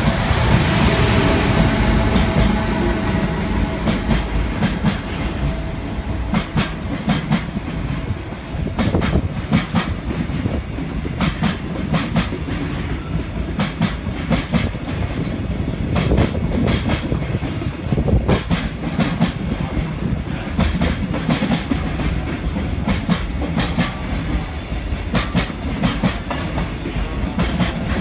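JR freight train passing at speed: a loud rush as the front goes by, then a long string of wagons whose wheels click over the rail joints in regular pairs over a steady rumble.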